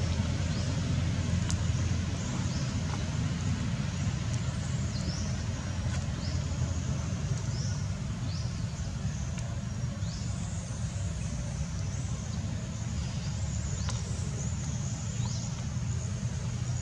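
Outdoor ambience: a steady low rumble, with short high chirps repeating roughly once a second and an occasional faint click.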